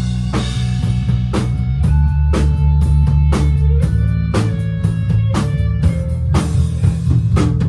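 Live gothic rock band playing an instrumental passage: electric guitar over a steady drum-kit beat, about two strikes a second.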